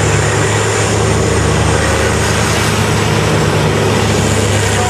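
Diesel engine of a Diamond Z 1463B tub grinder running steadily at constant speed, a deep, even hum.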